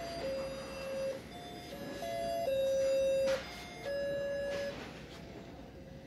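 A simple electronic tune: about eight held beeping notes switching between two or three pitches, the longest lasting nearly a second a little past the middle.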